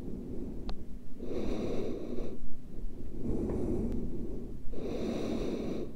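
A person breathing heavily and noisily, three long breaths about a second each.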